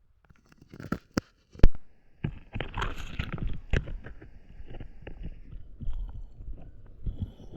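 Close handling noise: rubbing and rumbling against the microphone, with several sharp clicks in the first four seconds, the loudest about a second and a half in.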